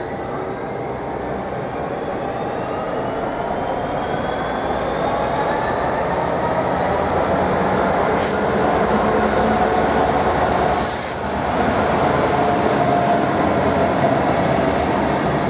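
A DB Cargo Class 66 diesel freight locomotive and its train of open box wagons passing, with a steady, gradually louder rumble and clatter of wheels on rails and faint wheel squeal. Two short hisses come about 8 and 11 seconds in.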